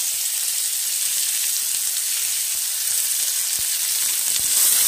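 Chopped onions sizzling in hot oil in a kadai, just added to a tempering of mustard seeds and dals and stirred with a slotted spatula; a steady high hiss.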